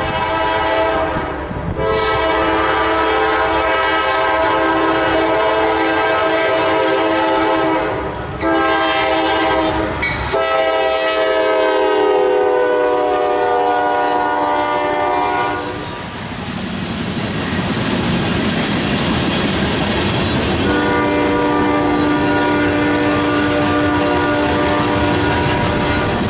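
A freight locomotive's air horn blows a chord in long blasts broken by short gaps, in a long, long, short, long pattern: the grade-crossing signal. Its pitch sags slightly as the locomotive passes. The freight cars then roll by with a steady clattering rumble, and a steady horn-like chord sounds again in the last few seconds.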